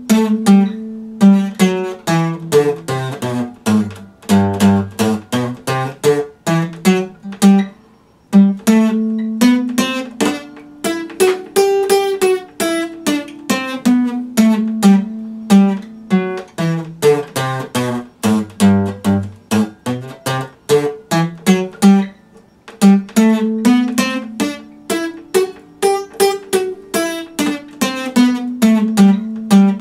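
Epiphone steel-string dreadnought acoustic guitar being strummed and picked through a repeating chord progression, with brief dips about eight seconds in and again about twenty-two seconds in.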